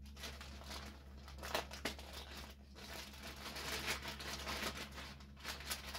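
Packaging crinkling and tearing by hand as a small package of patches is opened and handled, with irregular rustles and crackles.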